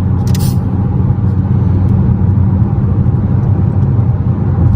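Steady low rumble of a car on the move, heard from inside the cabin, with a brief rustle just after the start.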